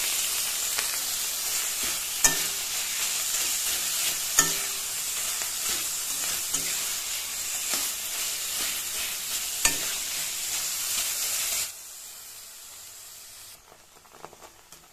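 Ground cauliflower paste frying in mustard oil in a metal kadai, sizzling steadily while a spatula stirs and mixes it. Three sharp clinks of the spatula against the pan stand out. The sizzle cuts off suddenly about three-quarters of the way through, leaving it much quieter.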